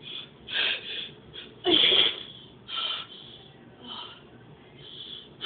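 A girl retching: a series of short throaty heaves and gasping breaths, the loudest about two seconds in, as she brings up her stomach contents from nausea.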